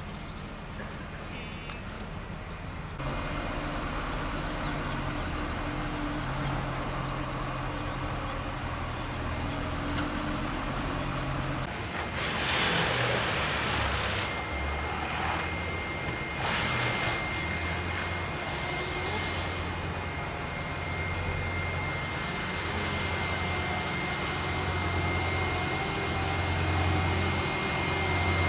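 A heavy vehicle's engine running steadily with a low hum, broken by a few loud hissing bursts around the middle.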